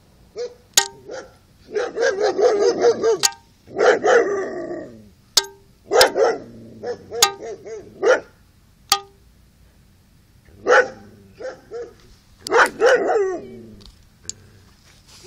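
A dog barking in several bouts, some as quick runs of short barks, with a few sharp clicks in between.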